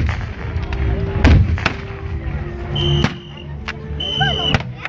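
Blank gunfire in a battle reenactment: a string of sharp shots at uneven spacing, about half a dozen, the loudest at the start and about a second in.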